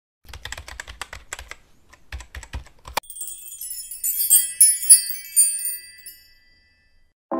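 Logo-reveal sound effects: a quick run of keyboard-typing clicks, a few more clicks, then a sharp hit about three seconds in followed by high tinkling sparkle chimes that die away.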